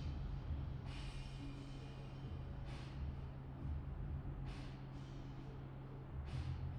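Background music: a steady low drone with a swishing accent about every two seconds.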